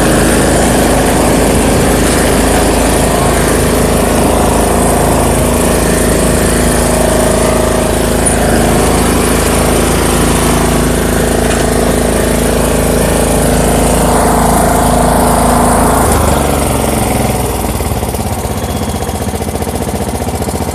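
Riding lawn mower engine running steadily and loud. About three-quarters of the way through it eases off to a quieter, lower running.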